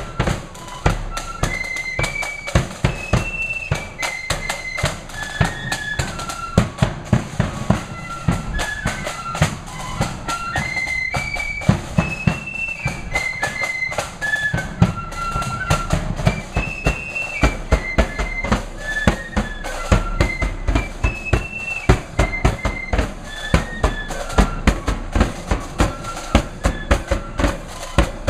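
Marching flute band playing a tune: flutes carry a high melody over a steady rhythm of quick drum strokes and bass drum beats.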